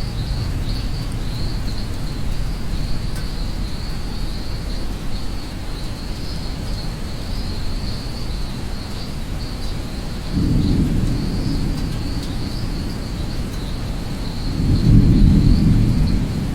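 Steady rain with a low rumble of thunder that swells twice, about ten and fifteen seconds in, over a continuous high chirring of insects.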